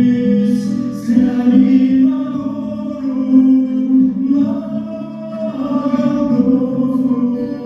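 Voices singing a song in long held notes that change pitch every second or so, with the hiss of sung consonants now and then.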